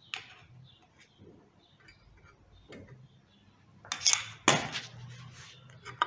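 Metal hand tools clinking and clattering on a workbench as a greased thread-cutting tap and its tap wrench are handled and set into a hole. There are scattered light clicks, then two louder rattling clatters a little past the middle.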